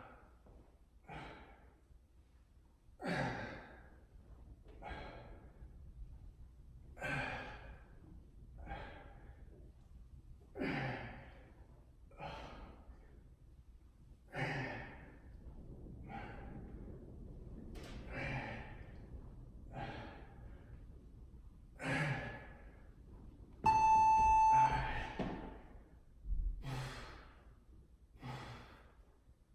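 A man breathing hard during dumbbell exercise, a forceful exhale every second or two with each rep. About 24 seconds in, a workout interval timer beeps once for about a second, marking the switch to the next 30-second exercise.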